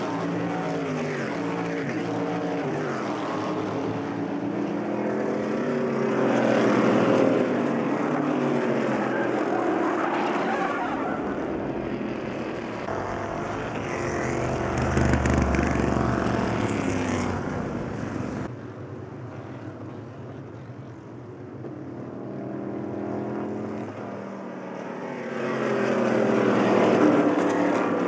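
Stock Car Brasil race cars' V8 engines at racing speed, several cars passing one after another, the engine note climbing through the gears and falling away as each goes by. About halfway through, one car passes close with a deeper, louder rumble.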